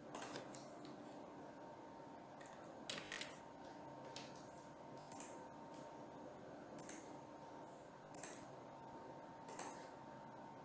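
Faint short scratches and taps of a pen on a drawing tablet as lines and writing are put down, roughly one every second or two, over quiet room tone with a thin steady hum.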